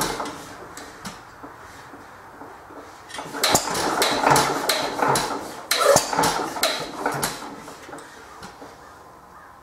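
Irregular metallic clanks and clicks from a 1914 Economy Model D hit-and-miss gas engine being turned over in a start attempt with the choke closed. The clatter is busiest and loudest in the middle, then thins out near the end.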